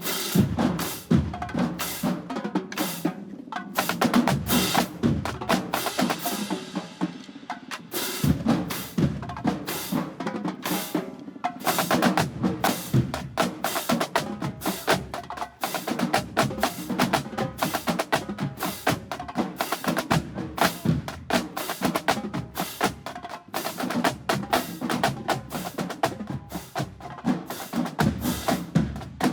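Marching band drumline playing a cadence: snare and bass drums beating a fast, dense rhythm, with short breaks about four and eight seconds in.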